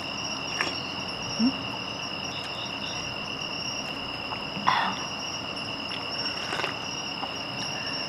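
Crickets chirping in a steady, high, unbroken trill, with a few soft clicks over it, the loudest about halfway through.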